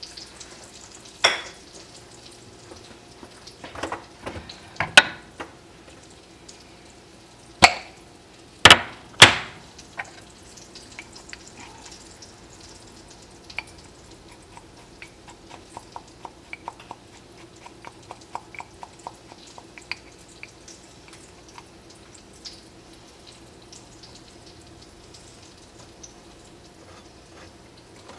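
Kitchen prep handling while flour is measured out: a handful of sharp knocks and clatters of a measuring cup, containers and utensils set down on the counter in the first ten seconds, then a run of quick light ticking a little past the middle, over a faint steady hum.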